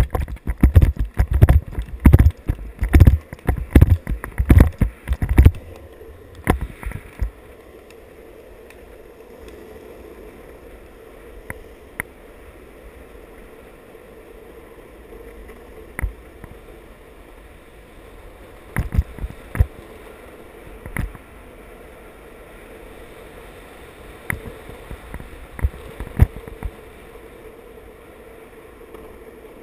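Steady rolling hum of longboard wheels on asphalt, with wind on the microphone during a downhill ride. A dense run of loud knocks and thumps fills the first five or six seconds, then single knocks come every few seconds.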